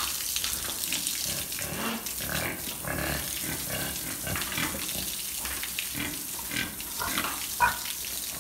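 Water spraying from a hose onto black pigs and a wet concrete floor, with the pigs grunting repeatedly as they are washed; one louder grunt comes near the end.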